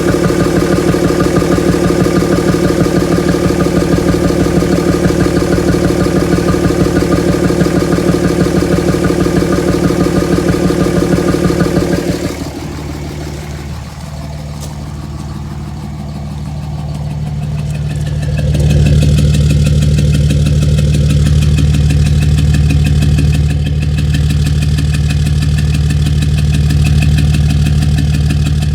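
2007 Dodge Ram's 5.9 Cummins inline-six turbodiesel idling with a rough, evenly pulsing beat, which the owner suspects goes with too much blow-by and an odd exhaust note. About twelve seconds in the sound drops and thins, and from about eighteen seconds it comes back louder and steadier with a deeper tone.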